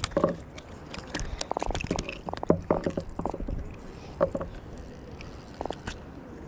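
A small Atlantic croaker being unhooked by hand from a sabiki rig: clicks and rustles of fingers on line and hooks, with several short croaks scattered through, the drumming a croaker makes when taken from the water.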